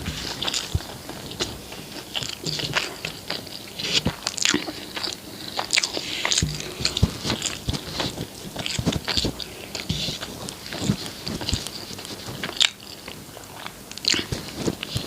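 Close-miked chewing and biting of food, a dense run of quick, irregular mouth clicks and smacks.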